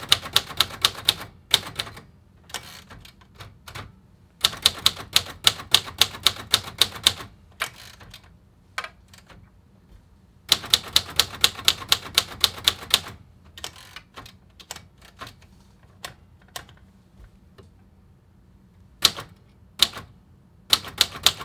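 1960s Royal Safari manual portable typewriter being typed on: three quick runs of keystrokes, about seven clacks a second, with pauses and scattered single strokes between them.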